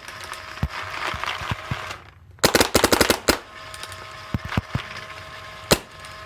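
Empire Mini GS paintball marker firing 3D-printed TPU paintballs in semi-auto: scattered single shots and a quick string of about six shots in the middle, with a short pause about two seconds in.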